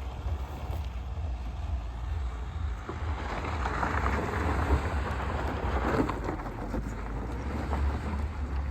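Mahindra Scorpio SUV driving off-road: a steady low engine rumble with a rough, rushing noise that swells for a few seconds in the middle, with scattered ticks and knocks.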